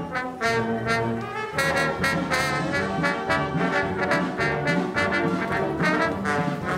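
Military brass band playing a march-style tune outdoors, the full band coming in louder about a second and a half in.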